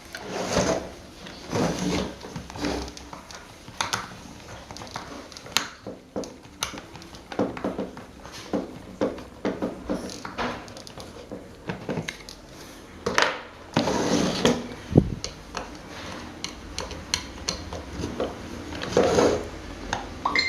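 Irregular clinks, knocks and short scrapes of metal parts being handled and set down on a work surface, with a few louder clatters about 13 and 19 seconds in.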